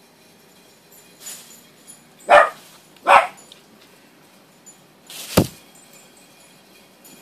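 Small dog barking: two loud, sharp barks a little under a second apart, then a third about two seconds later.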